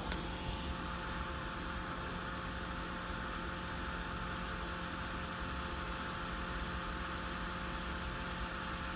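Steady background hum and hiss, with a few constant low electrical tones, such as a fan or mains hum. There is one faint click right at the start and no other distinct event.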